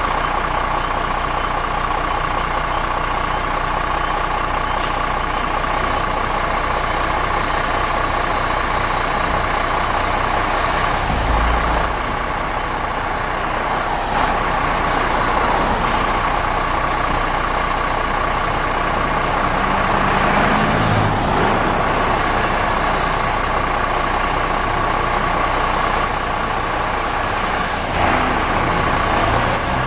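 Diesel engines of fire apparatus running as a fire engine pulls out of the firehouse bay and drives past, with short air-brake hisses. A steady high tone is heard for the first part. Near the end, a second truck's engine rises in pitch as it starts to pull out.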